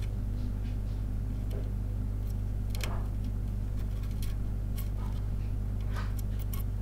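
Steady low hum under scattered faint crackles and ticks as a soldering iron presses desoldering braid onto fluxed solder joints, wicking out the old solder from a circuit board's holes.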